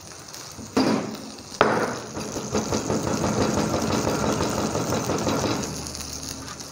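Chef's knife chopping onion fine on a plastic chopping board: two separate knocks in the first two seconds, then a fast, continuous run of chopping strokes that eases off near the end.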